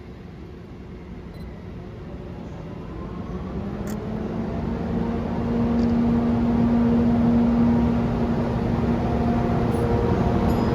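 EF64 electric locomotive hauling a train, its running sound growing steadily louder, with a steady hum at several pitches coming in about four seconds in.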